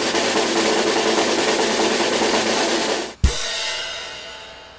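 Drum roll on a snare drum, ending about three seconds in with one crash-cymbal and bass-drum hit that rings and slowly fades: the suspense build-up before a result is announced.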